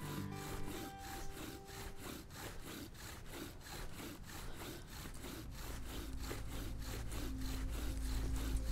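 Bow drill spindle grinding in the burnt-in socket of a wooden hearth board as the bow is drawn back and forth: a fast, even rhythm of wood rubbing on wood. The friction is heating the board enough to smoke, on the way to forming an ember.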